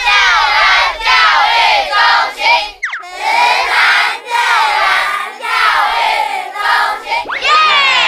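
A group of children's voices shouting and cheering excitedly together, with a quick rising whistle-like swoop about three seconds in.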